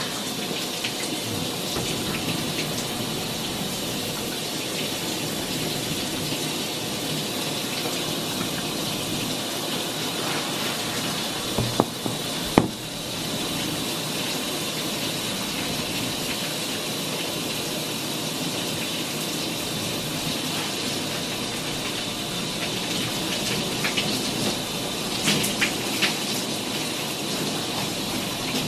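Shower spray running steadily onto a person and a tiled stall, an even hiss of falling water. A couple of sharp knocks cut through it about twelve seconds in, and a few lighter ones come near the end.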